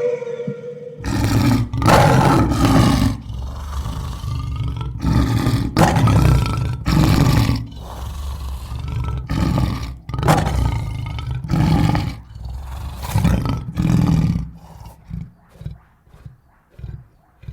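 A large animal's deep calls in a series, roughly one a second and loud, growing shorter and fainter toward the end. Before them, in the first second, a higher wavering call cuts off.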